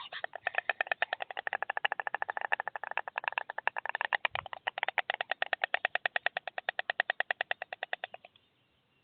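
White stork bill-clattering: a rapid, even run of wooden clacks that stops about eight seconds in. This is the storks' clattering display at the nest, typical of greeting.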